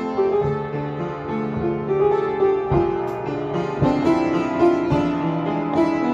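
Upright piano being played: a melody over held chords, with new notes struck every half second to a second.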